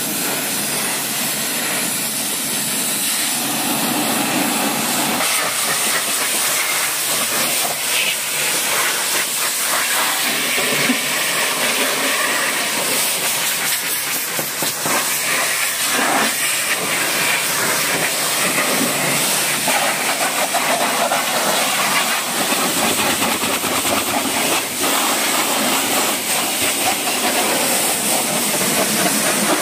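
A pressure washer's high-pressure water jet hissing steadily as it sprays a car's bonnet, windscreen and the ground beside it.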